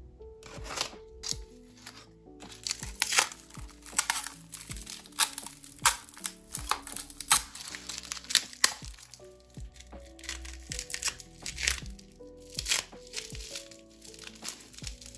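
Packaging crinkling and tearing in irregular crackly bursts as a parcel holding a photocard is unwrapped by hand, over soft background music.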